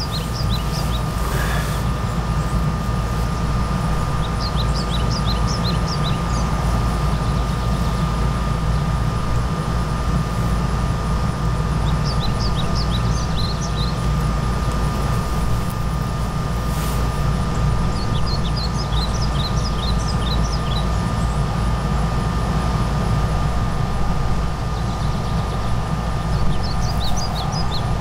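Steady low rumble with a thin high hum throughout, and short clusters of high chirps every few seconds. Near the end, breath is blown into a smoking tinder bundle to bring a friction-fire ember to flame.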